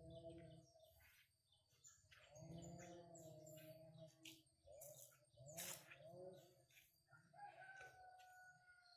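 Faint chickens calling in several short bouts, with small birds chirping.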